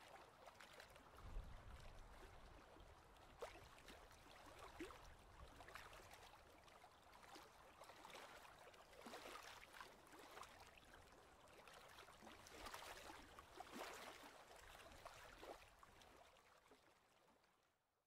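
Near silence: a faint hiss with scattered small crackles, dying away completely near the end.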